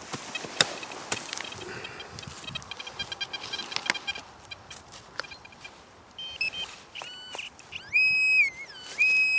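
A small hand spade chops and scrapes into dry field soil with sharp knocks. From about six seconds in, a metal-detecting pinpointer probed into the hole gives loud electronic tones, held at one pitch with short dips and steps, signalling buried metal that turns out to be a spent cartridge case.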